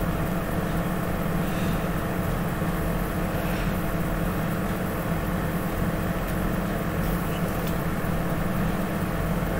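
Steady low machine hum with a rumble, holding several fixed low tones and not changing throughout; no distinct clicks from the spanner stand out.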